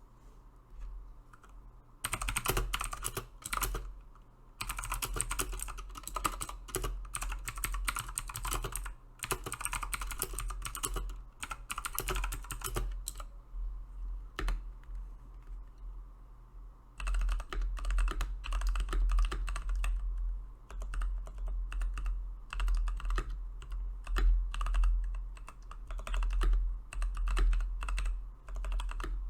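Typing on a Keychron V1 75% mechanical keyboard fitted with Tecsee Sapphire tactile switches, a sound test of its thock. Keystrokes start about two seconds in, thin out to scattered presses midway, then pick up again into fast typing.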